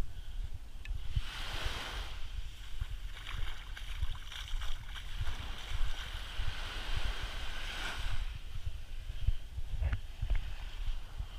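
Small waves washing up onto the sand at the water's edge, their hiss swelling and fading, with wind buffeting the microphone throughout.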